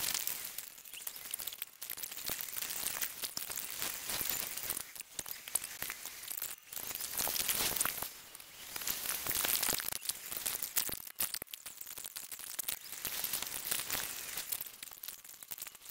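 Car cabin noise from a drive, road and engine sound, recorded by a dashcam and played back sped up so it becomes a high, crackly hiss that swells and dips, with brief dropouts.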